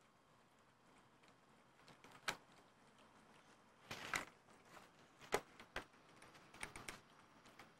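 A cat crunching dry kibble: a few sharp crunches and taps against near silence, spaced a second or more apart, with a quick cluster of them near the end.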